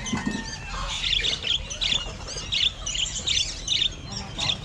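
Small birds chirping constantly, with quick high-pitched rising-and-falling notes in dense clusters several times a second.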